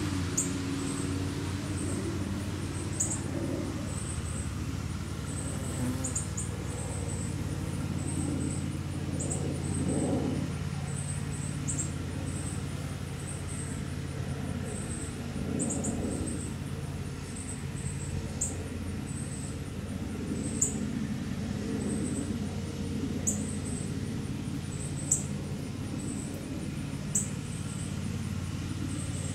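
Outdoor ambience: a steady low mechanical hum with short high chirps every second or two and an occasional sharp tick.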